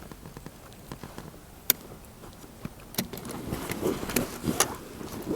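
A few scattered sharp clicks and light knocks from handling a target rifle and its gear, with some rustling.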